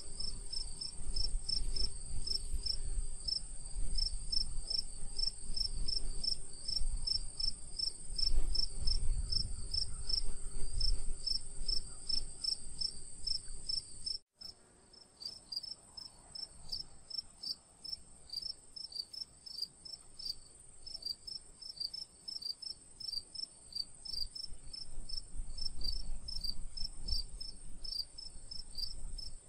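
Insects calling: a steady high-pitched buzz together with a rapid pulsed chirping at about four pulses a second. The sound cuts out briefly about fourteen seconds in, with a low rumble underneath in the first half.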